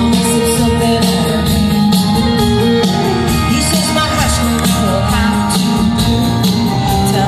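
Live country band playing through a concert PA, with a steady drum beat and guitars.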